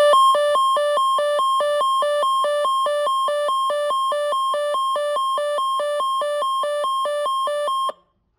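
Midland weather alert radio's alarm: a two-tone electronic beep alternating between a higher and a lower pitch about four times a second, announcing an incoming NOAA tornado watch. It cuts off suddenly near the end.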